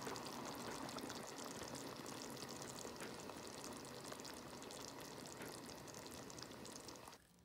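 Hot cheesy corn dip sizzling and bubbling in its baking pan: a faint, steady crackling hiss that cuts off suddenly near the end.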